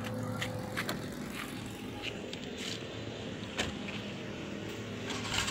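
Suzuki FX's 796 cc three-cylinder engine running steadily, with a sharp click about three and a half seconds in.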